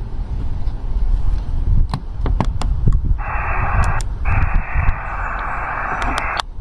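HF ham transceiver's speaker hissing with band-limited receiver static, twice: for about a second starting three seconds in, then after a short break for about two more seconds, cutting off sharply. A few sharp clicks of its front-panel buttons being pressed come before and near the end.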